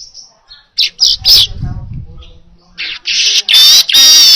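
Manyar (weaver bird) singing: a couple of short sharp chirps about a second in, then a loud, harsh, wavering buzzy song from about three seconds in.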